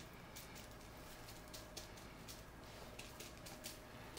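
Faint crinkling and rustling of plastic bubble wrap as hands press and smooth it flat: a loose scatter of light crackles, a few a second.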